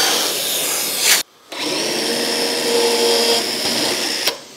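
Cordless drill held in a drill-guide stand, boring 30 mm recesses into a board with a Forstner bit. The motor runs steadily, stops about a second in, then starts again and runs for about three seconds before stopping near the end.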